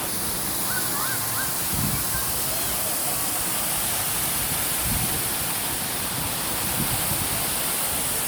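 Steady rushing noise, like falling water, with a few short faint chirps about a second in.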